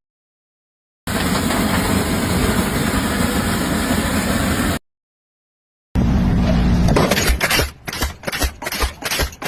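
Steady machine noise of an engine-like kind, cut off abruptly. After a second of dead silence comes another loud machine noise that breaks up into a run of uneven knocks.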